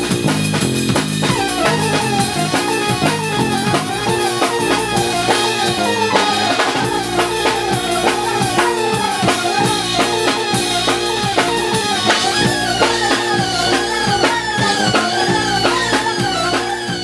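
Jazz band music driven by a busy drum kit, with dense, even drum and cymbal strokes over a bass line and a moving melody.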